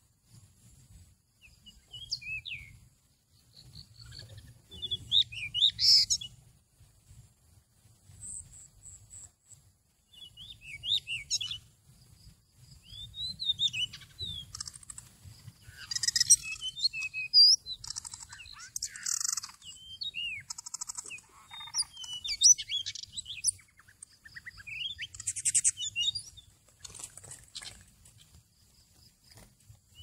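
Magpie-robin singing: varied whistles, chirps and short warbled phrases in bouts with brief pauses between them.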